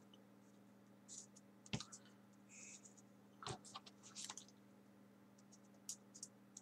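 Faint clicks and rustles of folded paper: small 3D origami pieces being picked up off a cutting mat and pushed into the pockets along the wing, with a few sharper clicks among them.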